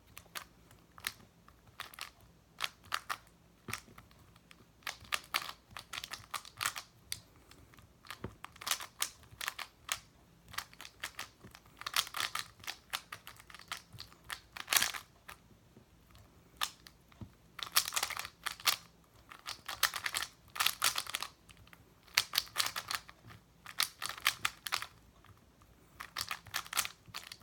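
A plastic 3x3 speed cube being turned fast by hand during a timed solve: bursts of quick clicking turns with short pauses between them.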